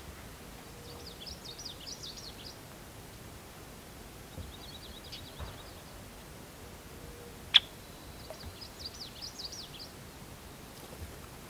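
Songbird twittering in three short bursts of rapid, high chirps over a quiet outdoor background. One sharp click about two-thirds of the way through.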